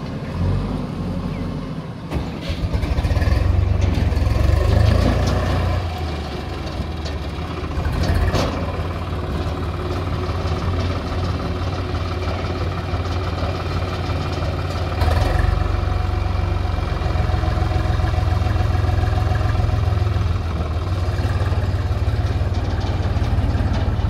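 A farm tractor's diesel engine running close by as it tows a tipping trailer through mud: a steady low rumble that steps up in loudness about fifteen seconds in.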